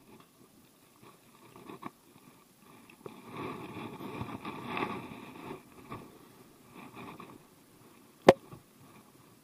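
Close cloth rustling and hand-handling noise as a caught fish is held and wiped in a rag right by the microphone, loudest about three to five seconds in. A single sharp knock about eight seconds in.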